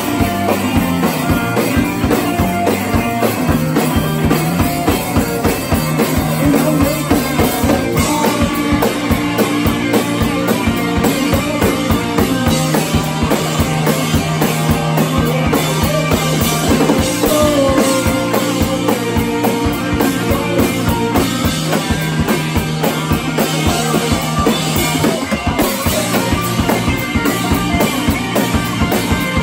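A rock band playing live: a steady drum-kit beat with bass drum under strummed guitar and bass.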